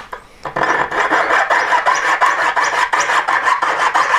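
Jeweller's piercing saw cutting through a brass rod in quick, even back-and-forth rasping strokes, starting about half a second in after a few light clicks.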